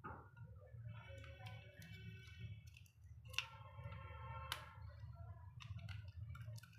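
Small clicks and ticks of a keypad phone's plastic parts being handled and pried apart during disassembly, with a faint steady hum underneath and two brief spells of faint high-pitched held tone.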